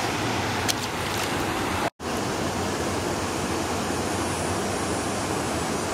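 Steady rush of water spilling at a dam, an even noise with no let-up. It cuts out for a split second about two seconds in.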